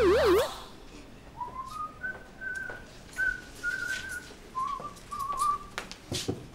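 Music with warbling, siren-like tones cuts off about half a second in. Then a man whistles a short tune of several high notes, some of them wavering, over light footsteps.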